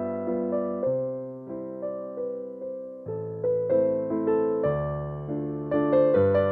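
Background music: a keyboard, piano or electric piano, playing a gentle piece, its notes struck and fading away one after another.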